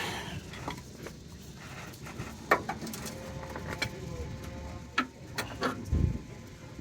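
A few sharp clicks and a low knock about six seconds in, from a hand grease gun being pumped with its coupler on the grease fitting of a steering idler arm. The coupler is not locking on properly.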